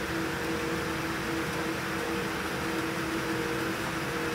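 Airliner cabin noise: a steady rush of ventilation air and machinery drone, with a steady two-pitched hum running through it.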